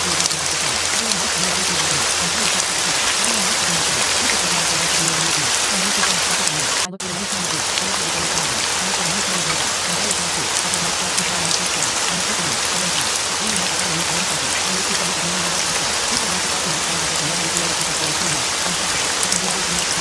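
Steady rain falling on a surface, with a faint low wavering murmur beneath it. The sound cuts out for an instant about seven seconds in, then resumes.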